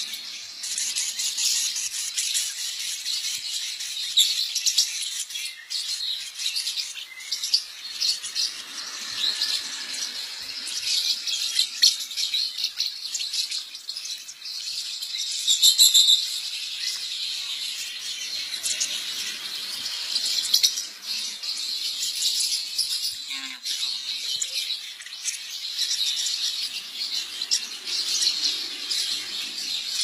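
A colony of lovebirds, adults and chicks, chirping and chattering constantly in a high-pitched, busy chorus, with a louder burst about halfway through.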